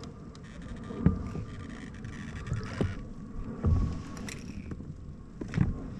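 Irregular dull thumps and knocks on a kayak's plastic hull as gear and fish are handled, a few seconds apart, with a few faint clicks.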